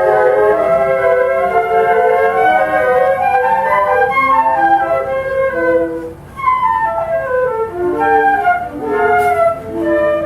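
A flute orchestra playing a choro, several flute parts moving together in quick melodic lines. About six seconds in there is a brief pause, and then the music goes on with a falling run of notes.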